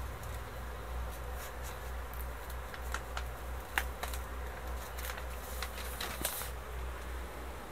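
A sheet of paper crackling and rustling as it is peeled off heat-pressed fabric and handled, with scattered crinkles from about three seconds in and a short rustle near six seconds, over a low steady hum.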